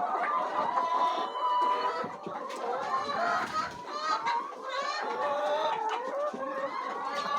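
A flock of chickens calling, many voices overlapping without a break.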